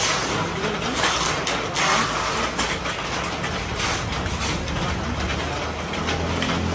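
A motor vehicle's engine running at idle over background traffic noise, a steady low hum that grows stronger near the end.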